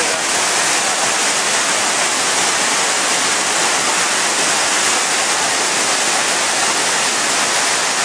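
Large, high-volume river waterfall: a steady, loud rush of white water pouring over rock ledges into a churning pool.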